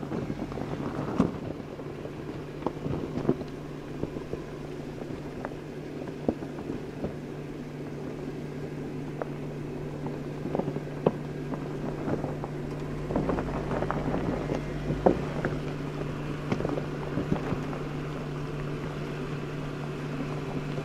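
Jeep Wrangler Unlimited Rubicon's engine running steadily at a slow crawl while its tyres grind over loose rock and gravel, with sharp cracks of stones every second or two. A deeper rumble comes in around the middle as it works over the loose ground.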